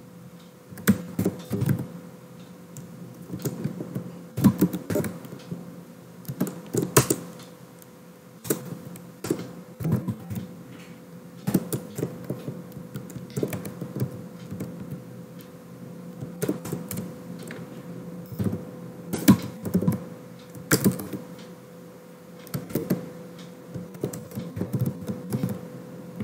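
Typing on a computer keyboard: irregular key clicks, singly and in quick runs, over a faint steady hum.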